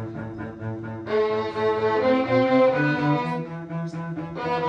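A string ensemble of violins and cellos playing held bowed notes over a low line, thin at first, then fuller about a second in, then thinning briefly before swelling again near the end.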